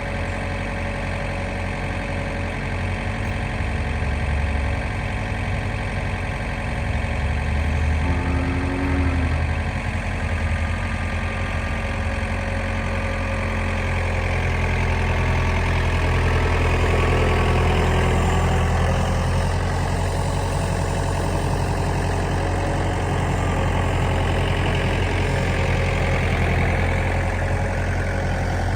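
An engine running steadily, with slow shifts in pitch and a slight swell in loudness past the middle.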